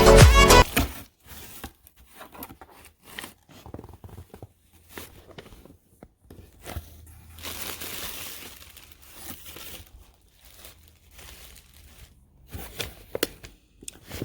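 Music stops within the first second, then paper packaging is handled during an unboxing: scattered crinkles, rustles and small taps, with a longer stretch of rustling about halfway through.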